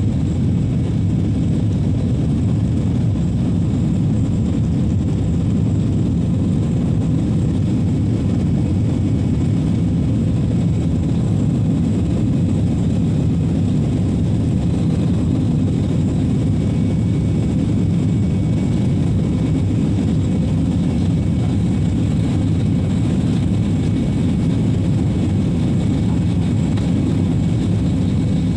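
Steady cabin noise inside an airliner: a constant low rumble of jet engines and airflow that holds level throughout.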